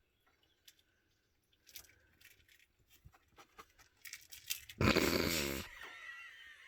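Soft, scattered licking and clicking of a cat grooming itself. About five seconds in comes a sudden loud, rough rasp lasting under a second.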